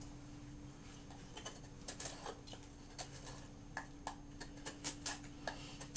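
Benchmade 615 Mini-Rukus folding knife's S30V blade whittling a wooden 2x2: an irregular string of short, sharp scraping cuts, beginning about a second and a half in.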